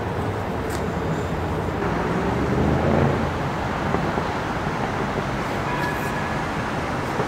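Steady city road traffic noise, with a vehicle passing and swelling loudest about three seconds in.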